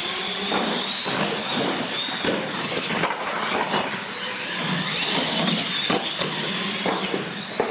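Radio-controlled monster trucks launching off the start and racing on a concrete floor: a high electric motor whine that rises as they get going and then holds, over tyre noise, with a few sharp knocks as the trucks hit and land off the launch ramps.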